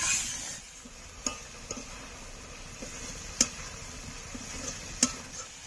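Spiced masala paste of onion, tomato, ginger, garlic and chilli sizzling in oil in a pan while a spatula stirs it, with a few sharp taps of the spatula against the pan. The paste is being fried down until the oil separates.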